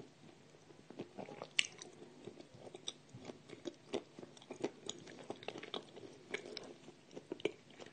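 A person chewing edible clay close to the microphone: many small, irregular crunches and clicks, several a second, fairly quiet.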